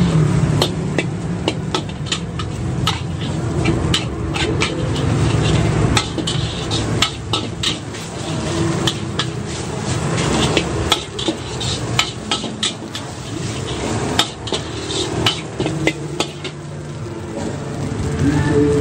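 Long metal spatula scraping and clanking against a carbon-steel wok as fried rice is stir-fried, with many irregular sharp clinks over the steady hiss of frying.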